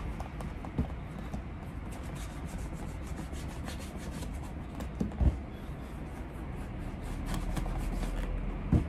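Steady, fine, scratchy rubbing on a leather shoe, a Gaziano & Girling punched cap-toe, as it is polished toward a mirror shine. A few soft knocks come through, about a second in, around the middle and near the end.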